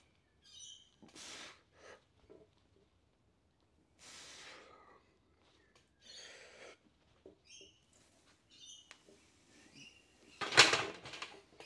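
Hard, sharp exhales from a man pressing a heavy barbell on a flat bench, one with each rep about every two to three seconds, with birds chirping in the background. Near the end a loud clank rings briefly as the loaded barbell is racked on the stand's hooks.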